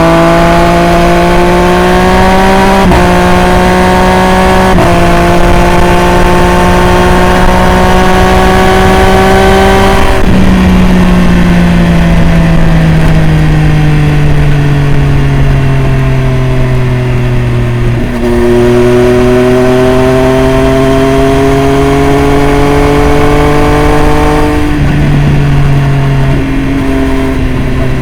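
Triumph Street Triple RS's inline three-cylinder engine through a Jeskap full aftermarket exhaust, pulling hard with the pitch climbing in each gear and quick upshifts about 3 and 5 seconds in. From about 10 seconds the pitch slides steadily down as the bike comes off the throttle. It pulls again from about 18 seconds, with further shifts near the end.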